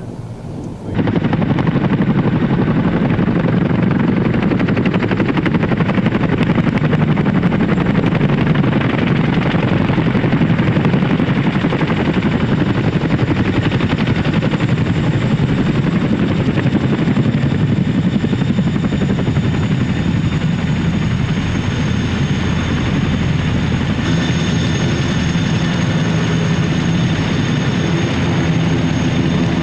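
Boeing CH-47 Chinook tandem-rotor helicopter running, with fast rotor chop under a high turbine whine. The sound cuts in suddenly about a second in, and the whine dips slightly in pitch about two-thirds of the way through.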